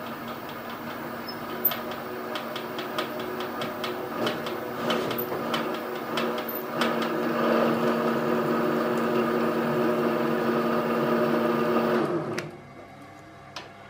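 Milling machine spindle running at slow speed, driving a tap dry into a brake caliper's stripped hole to cut a new thread: a steady hum with scattered ticks of cutting. The sound grows louder partway through and stops suddenly near the end, as the tap reaches its depth.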